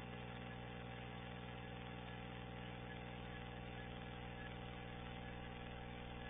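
A steady, unchanging low hum with a buzz in it, like an idling motor or electrical equipment.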